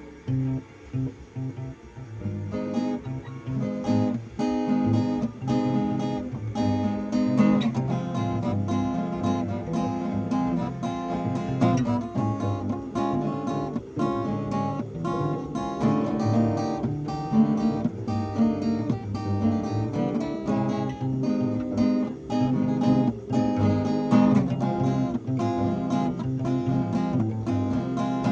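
A new acoustic guitar being tried out, played solo with a steady run of plucked notes and strummed chords. It starts softly and fills out from about three seconds in.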